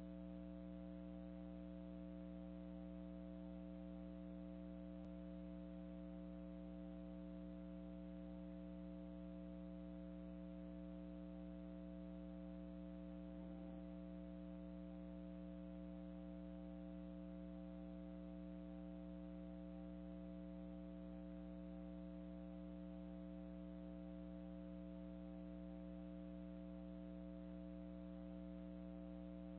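Steady, faint electrical hum made of several constant tones, unchanging throughout.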